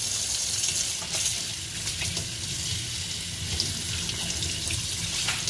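Kitchen tap running steadily into a stainless steel sink while hands are washed and rinsed under the stream.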